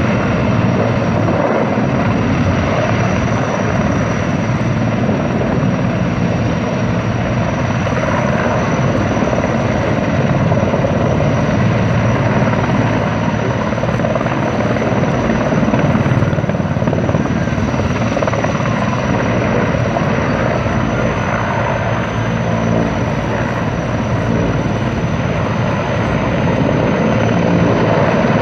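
Sikorsky S-64 Skycrane firefighting helicopter hovering low over a lake, its rotor and turbine engines running loud and steady with a thin high whine, while it draws water into its tank through its snorkel hose.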